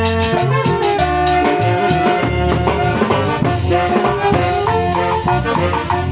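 A band playing lively music, with brass instruments carrying a held melody over a steady bass and beat.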